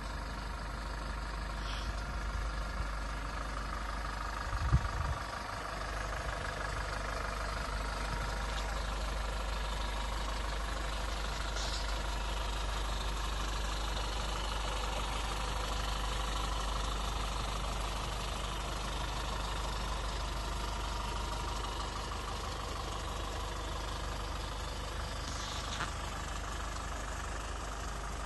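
Toyota Hilux 2.4 D-4D four-cylinder turbodiesel idling steadily with a light diesel clatter, a single thump about five seconds in.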